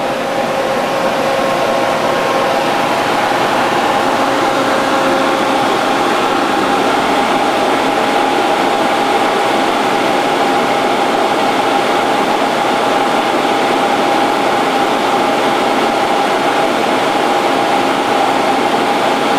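Steady machinery hum with a constant mid-pitched whine and no press strokes.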